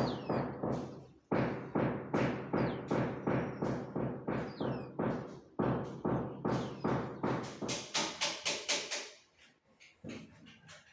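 Mallet tapping on large porcelain floor tiles as they are bedded into the adhesive: quick, even knocks, about two to three a second, that turn sharper and brighter near the end.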